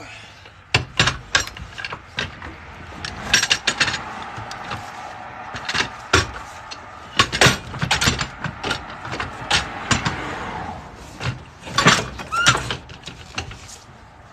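A run of sharp clanks and knocks from tools and equipment being handled and stowed. A vehicle passes on the street, its tyre noise swelling and fading through the middle.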